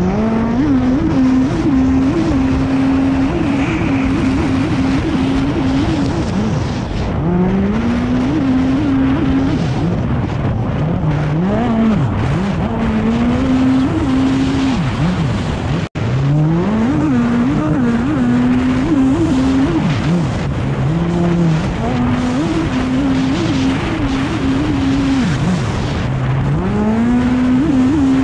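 Race stand-up jet ski with a modified Kawasaki SX-R 160 engine running flat out. Its note drops and climbs back again and again as the throttle is eased and reopened through the buoy turns, over the rush of spray and wind. The sound cuts out for an instant about halfway through.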